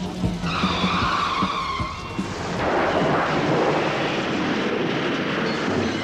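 A horror sound effect over fading music: a falling whine of several high tones, then a loud rushing noise from about two and a half seconds in that holds and slowly dies away.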